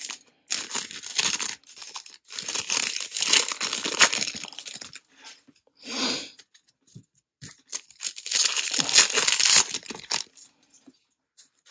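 A crimped plastic wrapper on a 2024 Bowman baseball card pack crinkling and tearing as it is ripped open by hand, in several bursts with short pauses between them.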